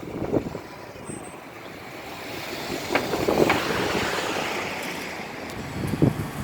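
A vehicle passing by: rolling noise swells to a peak three to four seconds in and then fades, with two sharp knocks about half a second apart near the peak.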